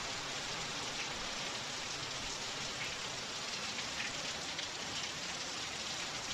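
Steady rain falling, with water dripping and streaming off the edge of an overhanging roof.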